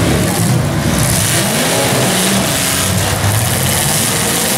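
Several demolition derby cars' engines revving and running, their pitch rising and falling, heard from the grandstand.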